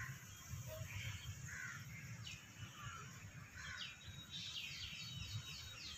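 Faint birds calling: a few soft scattered calls, then a quick run of short descending chirps, about four a second, over the second half.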